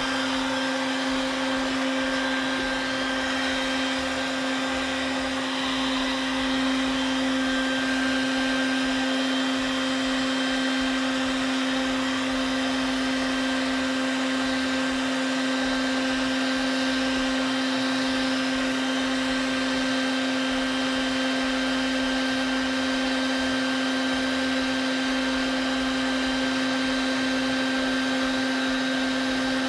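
Wet vac motor running steadily at one constant pitch, sucking the remaining water out of a top-load washer's tub through the pulled drain pump hose.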